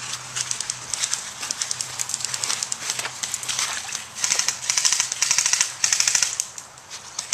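Airsoft electric rifles firing on full auto. There are scattered lighter shots at first, then from about four seconds in come three or four loud, close bursts of rapid shots.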